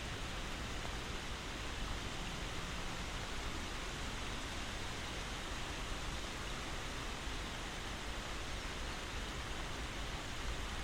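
Steady rain falling, an even hiss with no separate drops or other sounds standing out.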